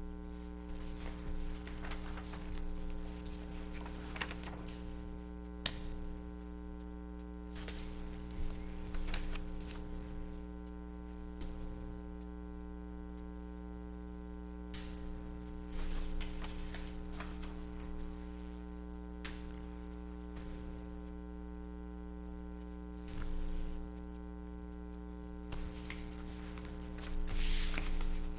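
Steady electrical mains hum picked up by the meeting-room microphone system, with scattered soft rustles and taps of paper being handled.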